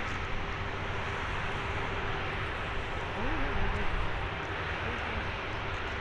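Steady jet engine noise from a Boeing 737-800's CFM56-7B turbofans heard at a distance, an even roar with a faint steady whine through it.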